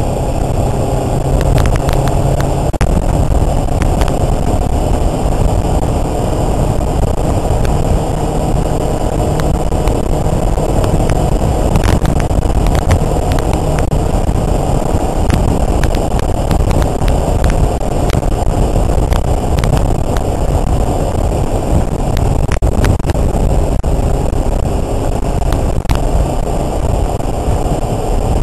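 Kawasaki Ninja sport bike's parallel-twin engine running at a steady cruise, mixed with heavy wind rush on the microphone and a few faint knocks.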